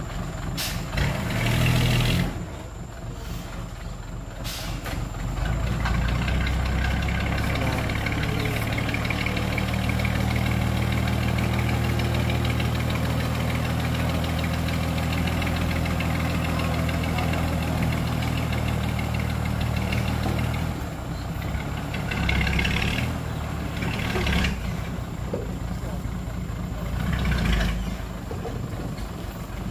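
Dump truck's diesel engine revved up and held steady to drive the hydraulic hoist as the loaded bed tips and the soil slides out, then dropping back to a lower run about two-thirds of the way through.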